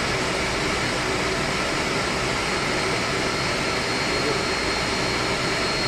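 Steady machinery noise of an air-conditioning plant: a constant loud roar with a thin high whine running through it.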